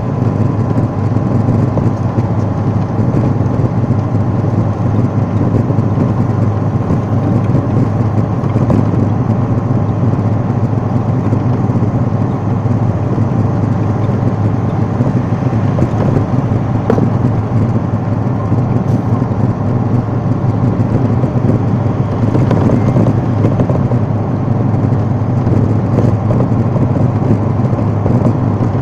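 Steady engine and road noise heard from inside a moving vehicle's cabin: a constant low drone that does not change.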